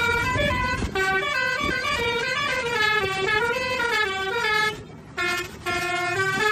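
Telolet-style musical bus horn playing a tune of stepped notes. It breaks off for a moment about five seconds in, then starts up again.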